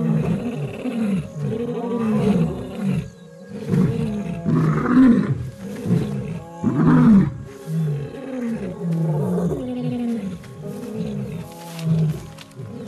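A male lion and a lioness roaring together: a long run of repeated short roars, the loudest about five and seven seconds in.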